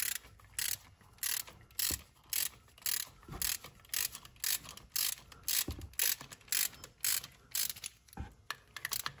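Ratchet wrench clicking in a steady rhythm, about two strokes a second, as a harmonic balancer installation tool's threaded stud is run into an LS crankshaft snout until it bottoms out.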